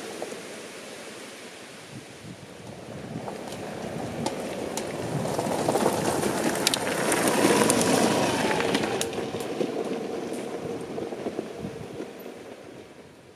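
A vehicle passing by: its noise swells to a peak about seven seconds in, then fades away.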